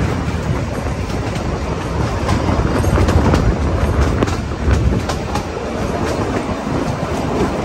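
Kalka–Shimla narrow-gauge toy train running, heard from aboard: a steady rumble of the carriage with irregular clicks of the wheels on the rails.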